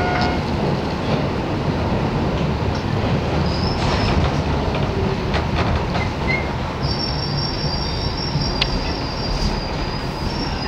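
R62A subway car running through the tunnel: a steady rumble of wheels on rail with sharp clicks over rail joints. About seven seconds in, a high steady wheel squeal sets in as the train pulls into the station.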